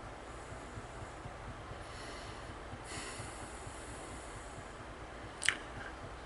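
A person sniffling and breathing through the nose, with soft breaths early on and one sharp sniff about five seconds in, over a low steady room hiss.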